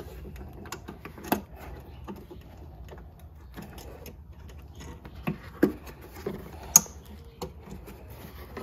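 A high-beam bulb being worked into its socket and clips in a plastic headlight housing: light handling rattles with scattered small clicks, the sharpest about two-thirds of the way through.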